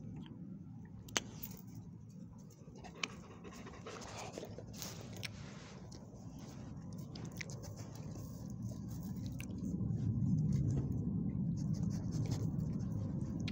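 A dog panting close to the microphone, with rubbing and scuffing as the dog's body presses against the phone. Two sharp clicks come in the first few seconds, and the low rubbing grows louder near the end.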